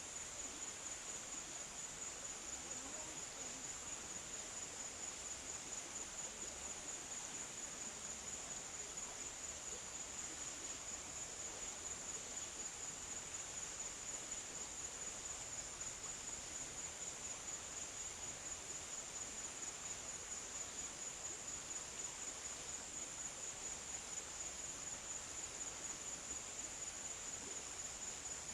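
Steady insect chorus: a continuous high-pitched trill with a fast, even pulse.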